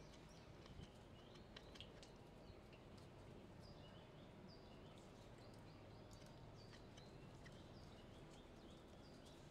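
Near-silent outdoor ambience: a faint steady hiss with a few faint ticks in the first two seconds, then a scatter of short, faint high chirps from about the middle onward.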